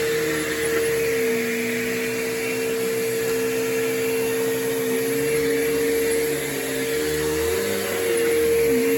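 Bissell CleanView Revolution Deluxe bagless upright vacuum running: a steady motor whine, with a lower hum that drops in pitch about a second in and climbs again near the end.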